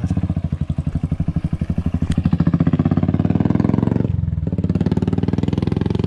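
Royal Enfield Classic 500 single-cylinder engine thumping through an aftermarket Dolphin silencer as the bike rides by, a rapid even exhaust beat with a heavy bass. It grows louder toward the middle, eases briefly about four seconds in, then picks up again.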